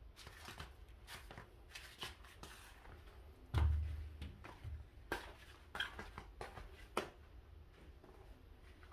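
Scattered rustling and light clicks of things being handled and moved, with one dull low thump about three and a half seconds in and a few sharper ticks after it.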